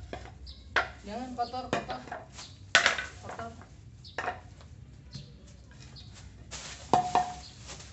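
Plastic shopping bags and wrapped parcels rustling and crinkling as clothes are pulled out and handled, with short sharp crackles and knocks. A small child's voice is heard briefly about a second in.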